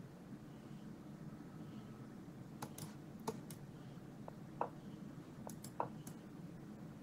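Faint computer mouse clicks and a few short knocks as online blitz chess moves are played, the loudest knocks about two thirds of the way in, over a steady low room hum.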